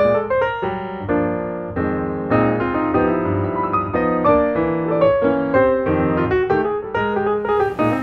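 Background piano music: a flowing melody of single notes over chords, each note struck and ringing away.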